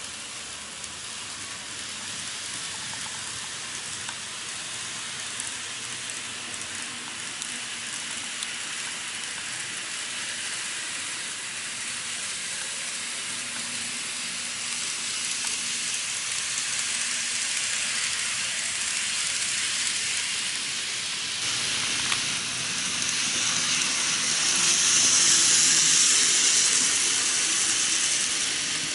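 N gauge model trains running on track: a steady hissing rush of running noise, louder for a few seconds near the end as a train passes close.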